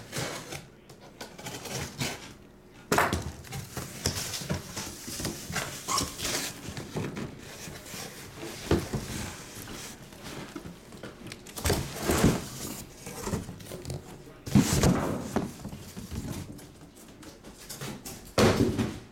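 Irregular knocks, thumps and rustling from a heavy cardboard case of trading-card boxes being handled and opened. A die clatters onto the table near the end.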